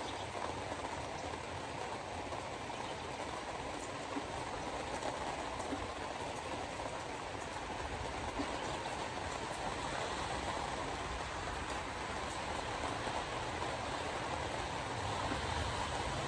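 Steady rush of a car driving through heavy rain: tyres running on wet pavement, with rain on the car.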